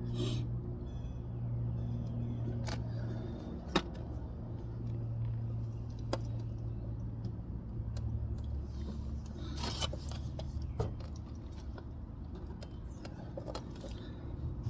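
Scattered light clicks and clinks of small objects being handled, over a steady low hum.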